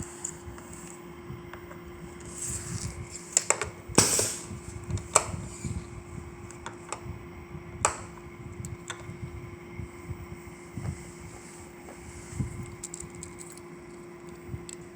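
Scattered sharp clicks and knocks over a steady machine hum with a constant tone, the loudest knock about four seconds in.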